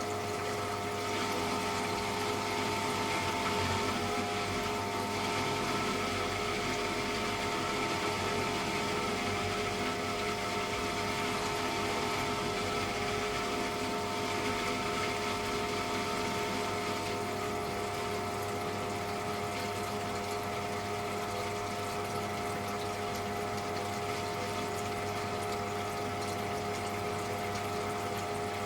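Electrolux Wascator W355H commercial washing machine running mid-cycle: a steady mechanical hum of several even tones over the rush of water.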